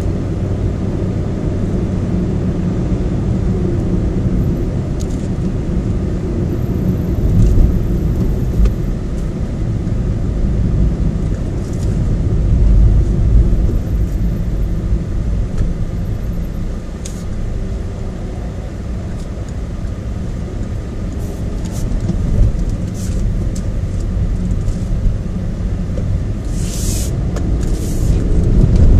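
Car driving at road speed, heard from inside the cabin: a steady low rumble of engine and tyre noise, with a few short clicks or rattles scattered through it, the loudest pair near the end.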